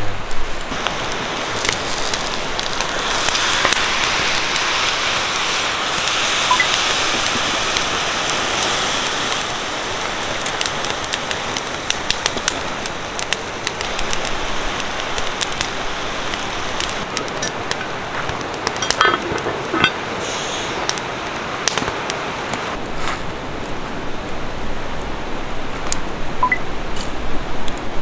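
Wood fire burning under skewered fish and a cooking pot: a steady hiss with scattered crackling pops, the pops coming thicker in the second half.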